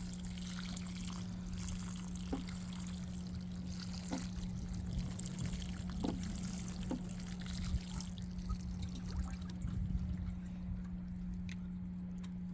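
Homemade liquid fertilizer tea being poured out and trickling onto soil, with a steady low hum underneath.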